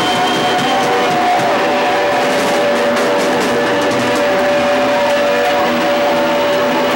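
Live band playing loud, with long held guitar notes at a steady pitch.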